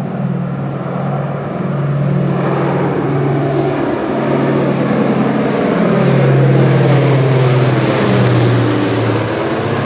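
Four radial piston engines of a World War II Boeing B-29 Superfortress bomber droning as it passes low overhead. The drone swells to its loudest in the middle of the pass and eases a little near the end.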